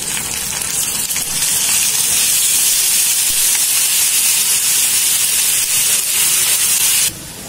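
Onion, ginger, garlic and chilli paste sizzling in hot mustard oil with browned onions in a metal kadai: a steady, loud hiss that cuts off suddenly near the end.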